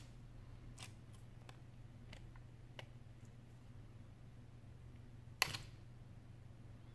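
Light clicks and taps from an iPhone 6 display assembly and its metal shield plate being handled and turned over by hand, with one sharper clack about five and a half seconds in, over a low steady hum.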